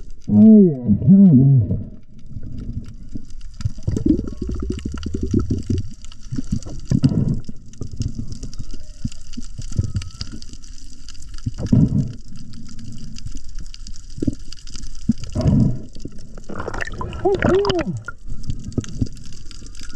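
Underwater sound picked up by the camera: a steady water hiss with several low moaning calls that rise and fall in pitch, once near the start and again near the end, and a fast run of pulses in between.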